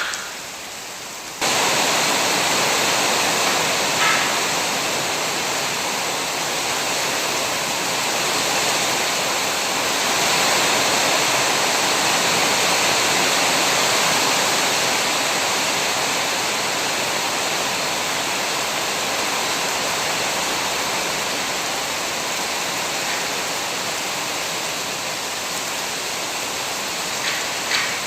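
Heavy rain pouring down in a dense, steady hiss. It turns abruptly louder about a second in, with a few sharper drop ticks now and then.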